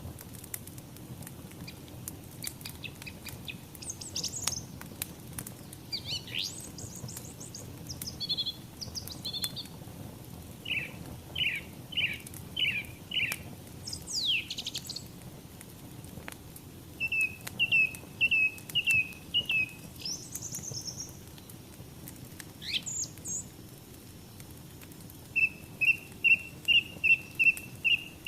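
Songbirds calling and singing over a crackling wood fire: runs of four to eight quick chirps, some sweeping whistles, and a higher trill, with scattered fire crackles and a steady low rush beneath.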